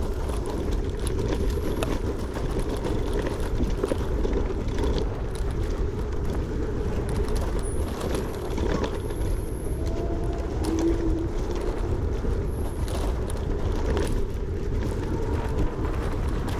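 Langfeite L8S electric scooter riding fast over a bumpy dirt trail: a steady rumble of tyres and wind on the microphone, with scattered knocks as it rides over bumps.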